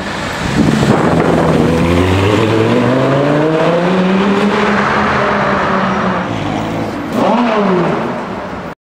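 Sports car engine accelerating hard, its note climbing steadily in pitch for several seconds and then levelling off. About seven seconds in, a second burst of revs falls quickly in pitch, and the sound cuts off abruptly near the end.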